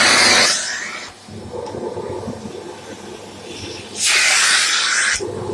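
Shark AZ910UK vacuum cleaner running with its upholstery tool, a rushing hiss of suction air that swells and drops: loud for the first half second, quieter for about three seconds, then loud again about four seconds in for just over a second.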